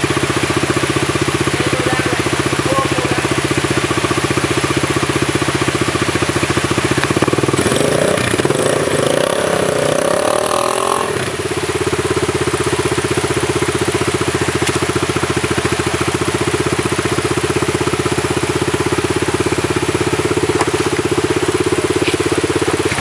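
Dirt bike engine running steadily, revved up and down for a few seconds from about eight seconds in, then settling back to a steady run.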